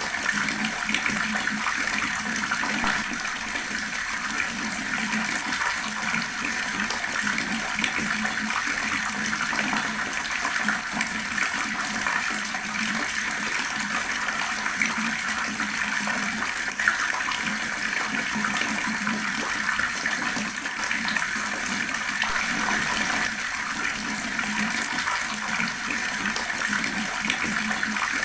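Water tap running steadily, the water gurgling and splashing.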